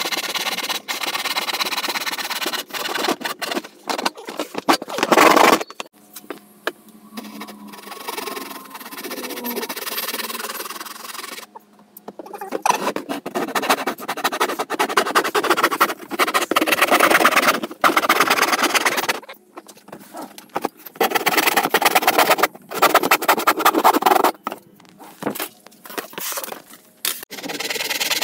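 Hand tools working plywood: rapid rasping strokes of a Japanese pull saw cutting through a sheet, and of a hand tool shaving along the plywood edge. The strokes come in runs broken by short pauses, with a quieter stretch about a quarter of the way in.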